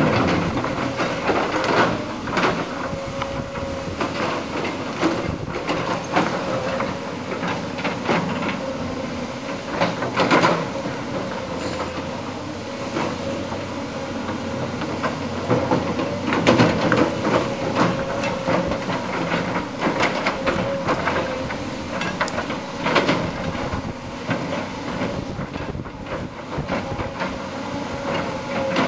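Tracked hydraulic excavators working: a diesel engine running with a steady whine, broken by irregular clanks and scrapes of the bucket and steel tracks on rubble, the loudest about ten and sixteen seconds in.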